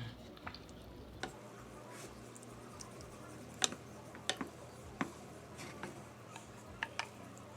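A spoon clicking and tapping irregularly against a pot while a thick mixture of condensed soups is stirred.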